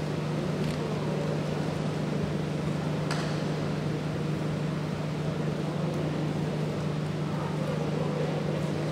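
Steady low hum over a constant background noise, with a single sharp click about three seconds in.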